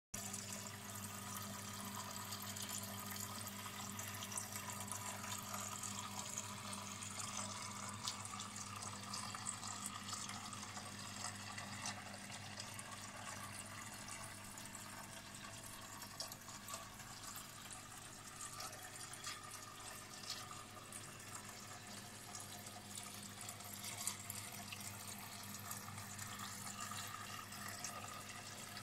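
Small rock-style waterfall fountain trickling steadily, with light splashing drips and a low steady hum underneath.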